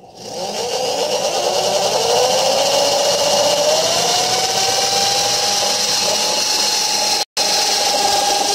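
Power drill running a hole saw through the boat's fibreglass side panel to cut a speaker hole. The motor starts right away and its whine rises in pitch over about two seconds, then runs steady with the grind of the saw teeth, briefly cut off about seven seconds in.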